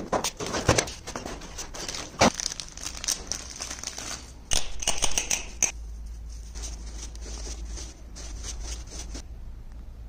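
Cardboard packaging being handled and opened by gloved hands: crinkling, tearing and sharp clacks, the loudest in a cluster between about four and a half and six seconds in. Then a softer rustling as a tuft of plumber's hemp is teased apart, which stops about nine seconds in.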